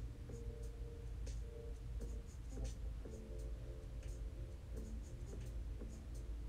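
Soft background music: held chords over a steady low bass, with light ticking percussion.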